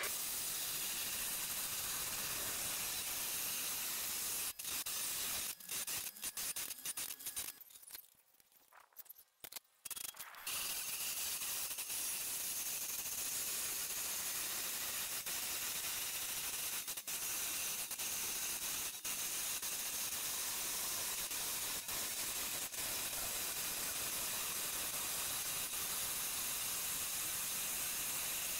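Electric motor-driven abrasive wheel grinding a steel lathe bed way flat: a steady grinding hiss. It drops away almost to nothing for about three seconds, with a few clicks, roughly a quarter of the way in, then comes back as before.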